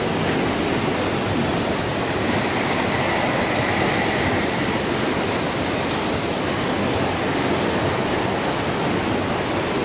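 Floodwater pouring over a dam's concrete spillway and rushing through a shallow, foaming channel: a steady, even rush of water. The reservoir is full and overflowing after heavy rain.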